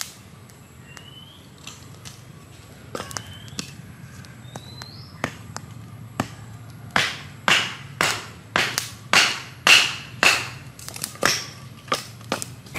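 Hatchet chopping a stick of firewood held upright on the ground: a run of about ten sharp strikes, roughly two a second, in the second half, after a few lighter knocks.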